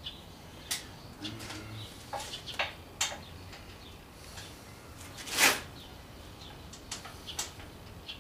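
Scattered clicks and light knocks of hands and tools working among the parts and wiring of a motorcycle, with one louder scrape about five and a half seconds in.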